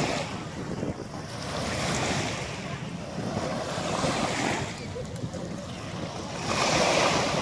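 Small lake waves lapping and breaking on a sandy shore, swelling and fading every couple of seconds, with the loudest swell near the end. Wind rumbles on the microphone underneath.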